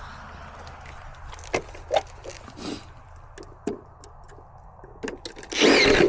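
Hands working on metal micro-mesh gutter guards: scattered light taps and knocks, then a louder noise about half a second long near the end.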